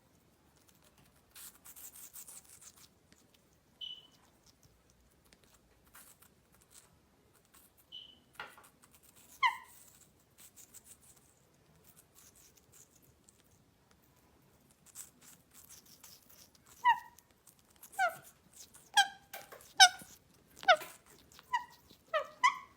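Parrot giving short, sharp squeaky calls: a few scattered ones, then a quick run of about a dozen near the end. Faint crisp crunching of apple being bitten early on.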